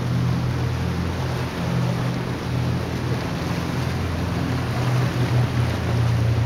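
A steady low engine hum, typical of a motorboat on the bay, over an even wash of small waves and wind.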